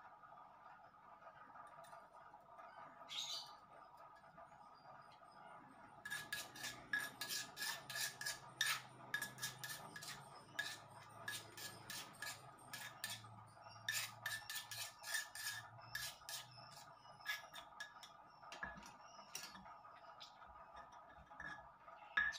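A stone pestle grinding and knocking against a stone mortar (Indonesian cobek and ulekan) as chilli sambal is worked: a quick run of clicks and scrapes, several a second. It starts about a quarter of the way in and thins out a few seconds before the end.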